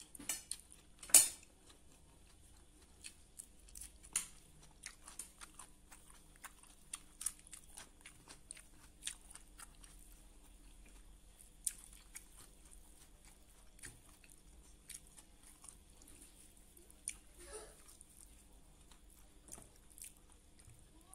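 A person chewing and smacking his lips while eating rice and cooked kale with his fingers: quiet, scattered wet mouth clicks, with one louder smack about a second in.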